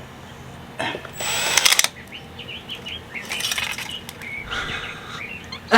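A small drill run in short bursts, boring holes through a thin aluminium gasket cut from a drink can. The longest run is about a second, near the start; shorter ones follow, with crinkling and ticking of the thin metal in between.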